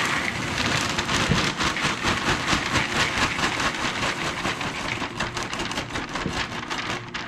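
Rice Chex cereal poured from a plastic bag into a large bowl: a dense, continuous patter of pieces landing, with the bag crinkling. It thins out near the end as the bag empties.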